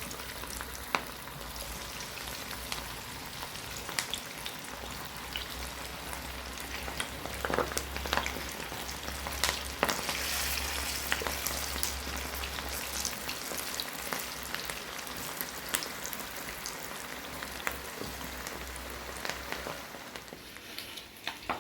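Chicken pakoda deep-frying in hot sunflower oil in a pan: a steady sizzle dotted with frequent sharp crackles and pops, with a low hum underneath that stops near the end.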